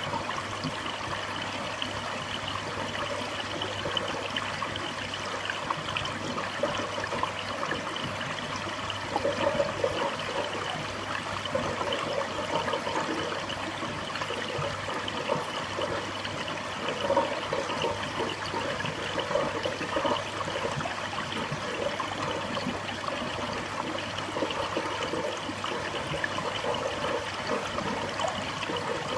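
Aquarium water circulating: a steady trickling and splashing of moving water over a low, constant hum.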